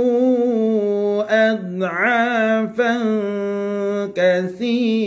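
A man reciting the Quran in a slow melodic chant, holding long wavering notes with short breaks between phrases.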